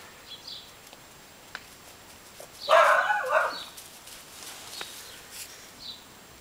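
A Welsh Springer Spaniel puppy barks once, a short burst about three seconds in.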